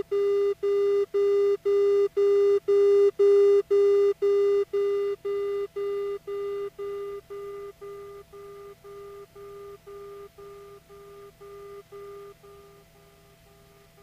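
Outer marker beacon tone coming through the Piper Archer's audio panel: a low beep in even dashes about two a second. It swells to its loudest a few seconds in, then fades away as the aircraft passes beyond the beacon.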